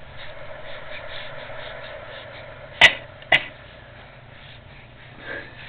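Two short fake coughs, about half a second apart, roughly three seconds in.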